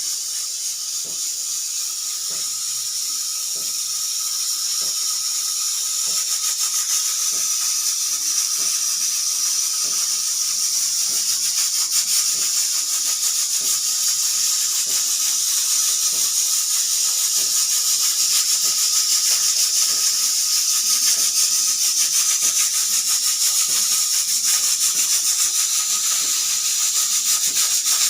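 Pressure cooker venting steam through its whistle as a steady hiss instead of a proper whistle, a sign the whistle is not working properly. The hiss grows gradually louder over the first several seconds. A faint ticking runs under it about twice a second.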